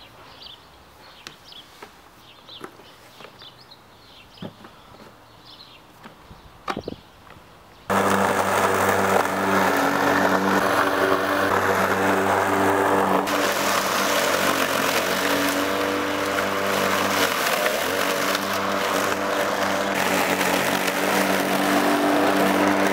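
A few light clicks over quiet outdoor sound, then about eight seconds in an electric rotary lawn mower's motor and blade cut in suddenly and run steadily with a constant hum.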